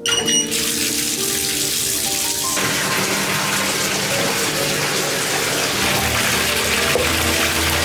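Water running steadily, a continuous rushing hiss that starts suddenly, with background music underneath.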